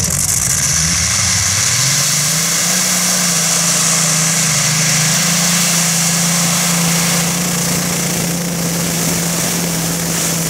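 Modified pulling tractor's engine at full power, dragging the weight sled: the revs climb over the first couple of seconds, then hold steady and high through the pull.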